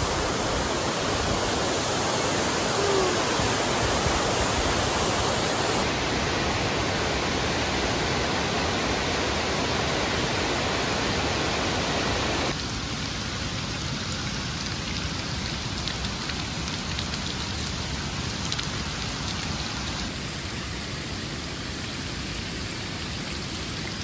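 Waterfall water rushing in a steady, even roar. The level drops abruptly about halfway through, then a little more later on.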